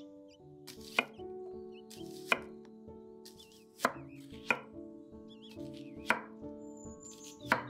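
Chef's knife slicing through a whole onion into rings and striking a wooden cutting board: six crisp chops at an unhurried, uneven pace, over soft background music.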